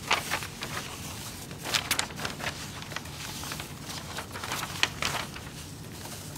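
Sheets of paper being handled and turned over close to a microphone: a string of short, crisp rustles and light taps, irregular and spread throughout, over a faint steady room hum.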